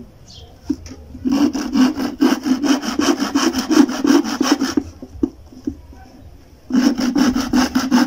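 Hand saw cutting a wooden roof support beam to length in quick, even back-and-forth strokes: a run of about three and a half seconds, a short pause, then a second run near the end.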